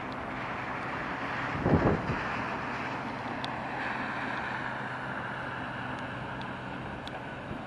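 Street traffic on a wet road: tyres hissing on the wet asphalt as a car passes, over a steady low hum. A gust of wind buffets the microphone about two seconds in.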